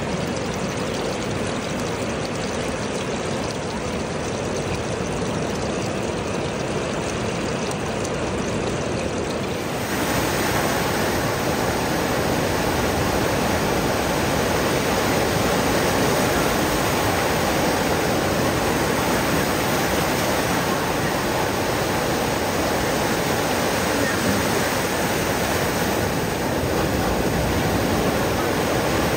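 Steady rush of flowing water, as from a stream or waterfall. About ten seconds in it becomes louder and fuller.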